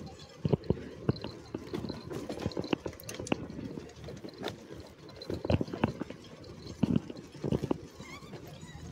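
Manual wheelchair rolling along a rough gravel towpath: irregular knocks, clicks and rattles from the wheels and frame.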